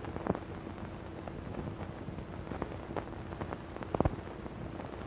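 Surface noise of an old optical film soundtrack: a faint steady hum with scattered crackles and pops, a few of them sharper, about a third of a second in and again around four seconds in.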